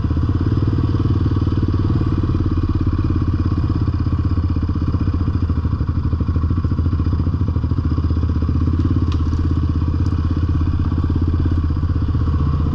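Yamaha Raptor quad's single-cylinder four-stroke engine running at low, steady revs on a slow trail crawl, with an even, fast pulse from the exhaust. A couple of faint clicks come about two thirds of the way through.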